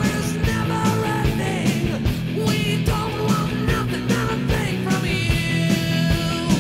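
Rock music soundtrack with a steady drum beat.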